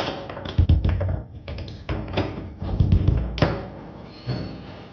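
Foosball in play on a Tornado table: the ball cracks off the plastic men and rattles against the table walls in a quick run of sharp knocks and thuds, with rods clacking, easing off after about three and a half seconds.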